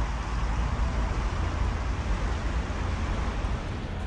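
Steady rushing of a shallow, rocky river, with a low rumble underneath that eases a little near the end.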